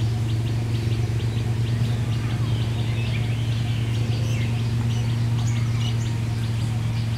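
Birds chirping over a steady low hum. Early on one bird repeats a short chirp about three or four times a second, then varied chirps and whistles follow.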